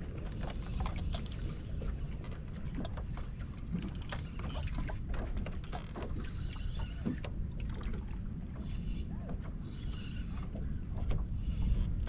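Wind buffeting the microphone with a steady low rumble, over water lapping at a bass boat's hull and scattered small clicks and splashes.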